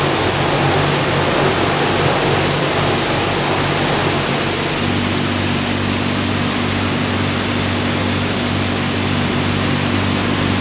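Milling plant machinery running: a loud, steady rush of air and machine noise over a low electric-motor hum. A second, higher steady hum tone joins about five seconds in.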